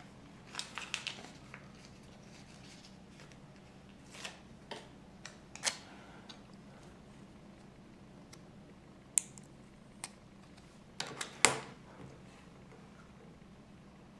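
Small handling sounds of plastic LEGO pieces and a sticker sheet: scattered light clicks and rustles, the loudest cluster about eleven seconds in.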